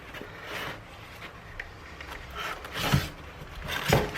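Packaging rustling and rubbing as parts are lifted out of a cardboard box, with two short louder bumps about three and four seconds in.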